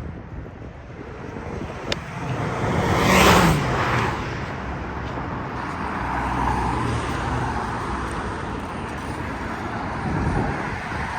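Street traffic, with one vehicle passing close about three seconds in, its sound swelling and dropping in pitch as it goes by. Steady traffic noise follows.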